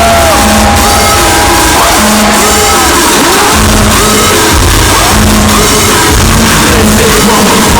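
Hardstyle DJ set blasting through a concert PA, recorded from within the crowd at near-full level, with the heavy kick drum dropping out briefly and crowd shouting and whoops over the music.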